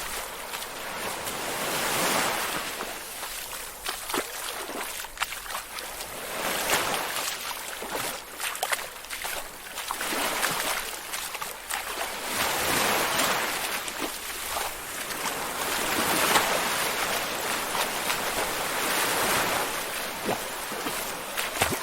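Someone wading through water: a sloshing swish with each slow step, every two to three seconds, with small splashes and drips between.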